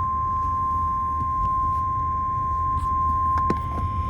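NOAA Weather Radio warning alarm tone: a single steady 1050 Hz tone held unchanged, the signal that a warning message such as a severe thunderstorm warning follows. A low rumbling hum and a few faint clicks sit underneath it.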